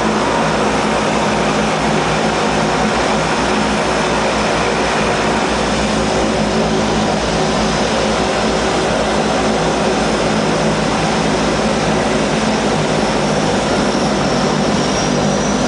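Turboprop engines of a Trans Maldivian Airways de Havilland Canada DHC-6 Twin Otter floatplane, heard from inside the cabin, running loud and steady as it moves across the water under power.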